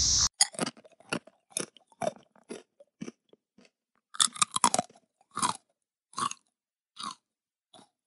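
Crunchy chewing, the sound of a cicada being bitten and eaten: a string of short, crisp crunches with silence between them, a quick flurry about four seconds in, then slower, fainter crunches near the end. A loud cicada chorus cuts off abruptly just as it begins.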